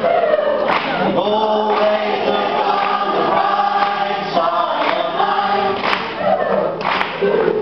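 Live singing, like several voices together, over a strummed ukulele, with a strum about once a second under held, sung notes.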